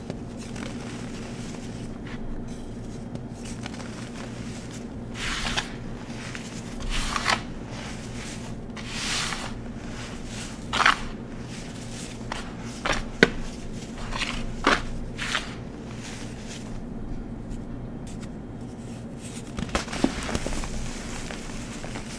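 Hands squeezing, rubbing and crumbling a heap of glittery chalky powder: soft crunches and swishes that come and go, with a few sharp snaps among them. A steady low hum sits underneath.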